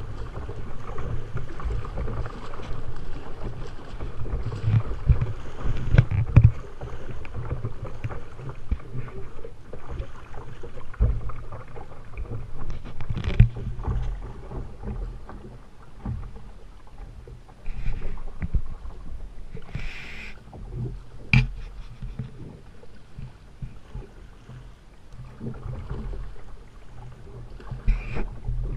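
River water rushing and lapping against a kayak's hull and a camera mounted just above the surface as the boat drifts through riffles, a constant low rumbling wash. A few sharp knocks stand out, and the wash eases toward the end as the water calms.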